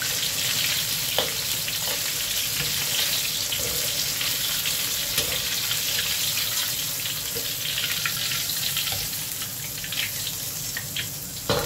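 Battered pork ribs deep-frying in hot oil in a wok: a steady hissing sizzle, with light clinks of a metal skimmer and spatula against the wok as the pieces are scooped out. A louder metal clank comes right at the end.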